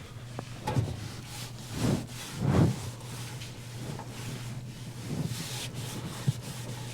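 Oven interior being wiped and scrubbed by hand after a steam-clean cycle: a few rubbing strokes, the loudest two to three seconds in, over a steady low hum.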